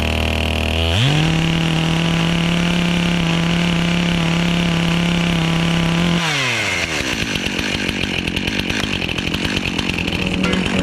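Gas chainsaw idling, revving up about a second in and holding high revs for about five seconds, then dropping back to a rapid, uneven idle.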